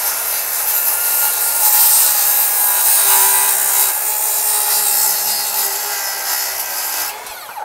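Cordless circular saw plunge-cutting down from above through the end of a wooden joist at a 4-degree bevel, the blade running under load for about seven seconds with a steady whine, then stopping near the end.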